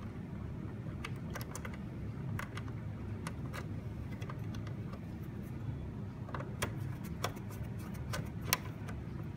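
Scattered small clicks and taps of a screwdriver and crimped wire terminals being worked at a screw terminal block, the sharpest click near the end, over a steady low hum.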